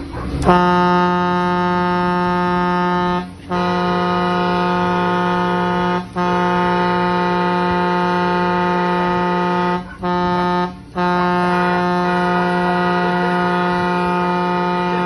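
Vehicle horn held in long steady blasts, five in a row with brief gaps between, sounded to scare a brown bear and her cubs away.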